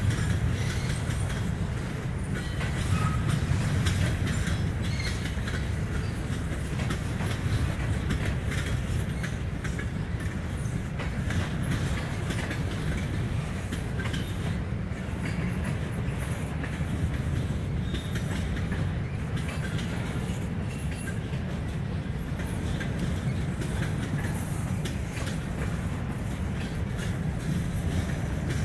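Freight train's cars rolling past at steady speed: covered hoppers, a tank car and centerbeam flatcars, giving a continuous low rumble with faint wheel clicking.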